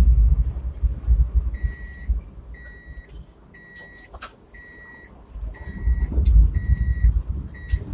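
Hong Kong tram running over the rails with a low rumble, easing to a standstill and then moving off again near the end. Through the stop, an electronic warning beep sounds at one pitch about once a second, seven times, with a couple of sharp clicks between.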